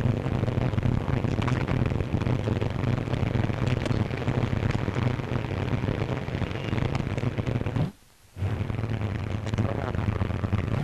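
Steady rumbling noise with a low hum from an old newsreel's location sound track, broken by a brief silent gap about eight seconds in at a splice.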